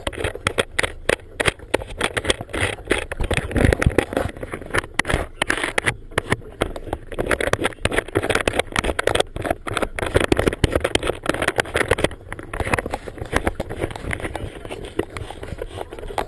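Handling noise on a hand-held GoPro housing aboard a motorboat: rapid knocks, rubs and scrapes over a steady low rumble from the moving boat.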